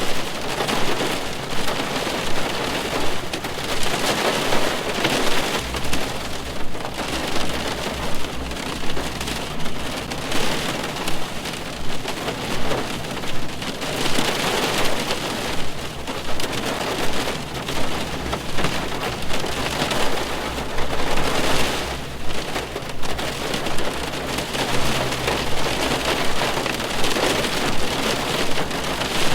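Rain falling on a car's roof and body, heard from inside the car: a dense, steady patter of drops.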